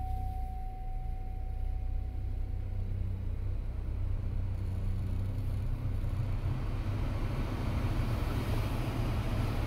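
Newly replaced blower fan in a 2012 Chevrolet Impala's dash starting up, its rush of air building gradually as the fan speed is turned up, over a steady low hum. A thin steady tone stops about three seconds in.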